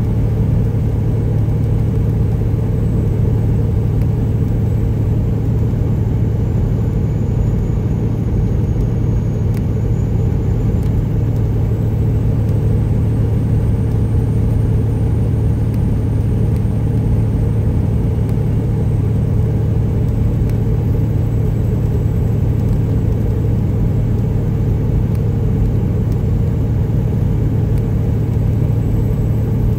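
Peterbilt 379's Detroit Series 60 inline-six diesel with straight pipes, running steadily at a 70 mph highway cruise and heard from inside the cab as a constant low hum that holds the same pitch throughout.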